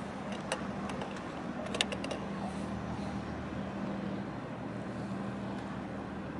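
Steady low engine hum over a constant harbour noise. A few short sharp clicks come about half a second in and again around two seconds in.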